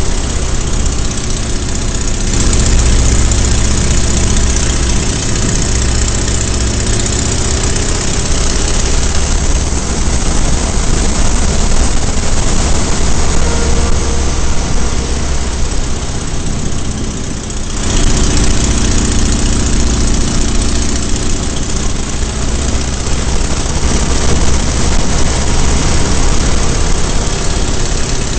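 Biplane engine and propeller running steadily, mixed with a loud, steady rush of air noise. The sound shifts abruptly about two seconds in and again near eighteen seconds.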